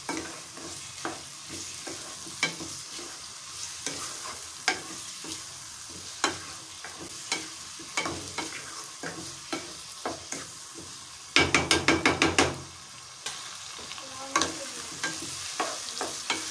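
Meat and sliced onions sizzling in oil in a non-stick pot while a spoon stirs them, with scattered soft clicks and scrapes of the spoon; the meat's released water is being fried off. Near the middle comes a quick run of about eight sharp knocks, the loudest thing heard.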